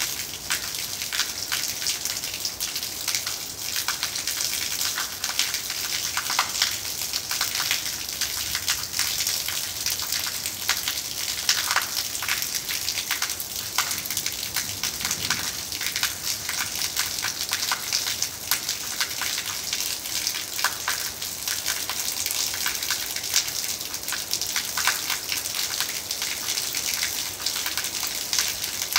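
A thin stream of rainwater pouring steadily onto wet terracotta floor tiles, splashing, with a dense crackly patter of drops around it.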